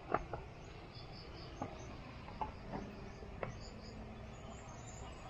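Insects, likely crickets, chirping faintly in short high pulses. A few short clicks and taps break in, the loudest just after the start.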